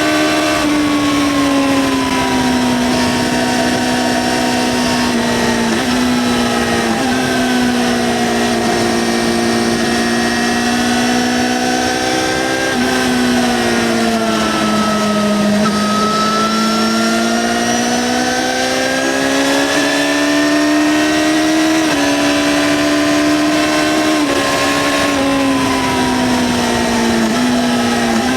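2009 Yamaha XJ6-N's 600 cc inline-four running through its stock exhaust under way. Engine speed rises and falls gently with several small sudden steps in pitch, easing off to its lowest about halfway through and then picking back up.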